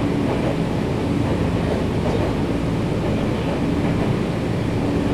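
Nankai 7100 series electric train running between stations, heard from inside the car: a steady rumble of wheels on rail with a low hum that fades in and out.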